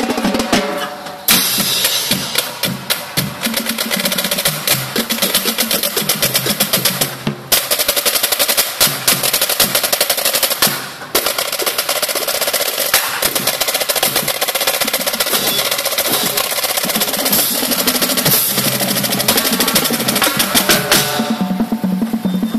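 Marching percussion line of snare drums, tenor drums, bass drums and cymbals playing a fast drum cadence full of rapid rolls. The playing breaks off briefly about a second in and again around seven and eleven seconds in, and near the end the snares drop out, leaving the lower tenor and bass drums.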